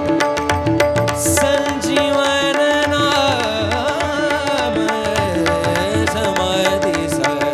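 Devotional bhajan music: a steady drone with a hand drum and small cymbals keeping a regular rhythm, and a wavering, gliding melody line coming in about a second and a half in and falling away near the end.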